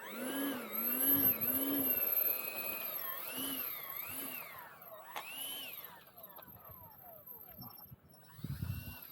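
Motor of a radio-controlled model aircraft whining as it flies. Its pitch swings up and down with the throttle through the maneuvers, then fades after about five seconds.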